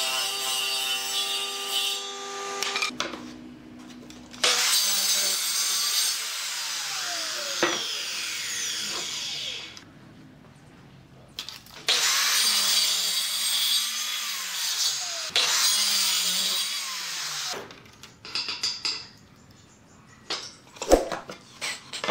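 Electric saws cutting pine boards: a saw motor running steadily, then two long cuts of several seconds each, during which the motor note sags and recovers under load. The later cut is a Maktec circular saw run along a wooden guide rail. A few wooden knocks and clatters of board handling follow near the end.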